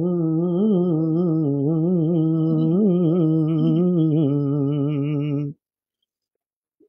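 Unaccompanied naat singing: a single voice holds one long, gently wavering note, drawing out the end of a line of the Arabic verse. It stops suddenly about five and a half seconds in.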